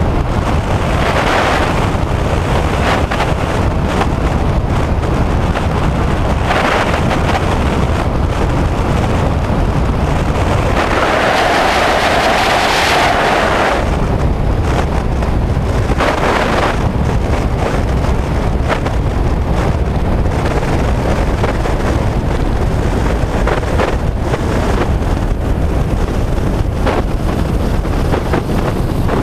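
Steady rush of wind on a microphone mounted under a high-wing light aircraft's wing, over the aircraft's engine noise, through final approach, touchdown and rollout. The noise swells for a few seconds about eleven seconds in.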